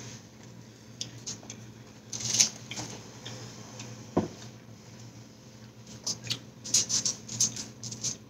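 A plastic straw worked up and down through the domed lid of a milkshake cup, giving a fast run of squeaky plastic clicks in the last couple of seconds, after scattered smaller clicks earlier on. A steady low hum runs underneath.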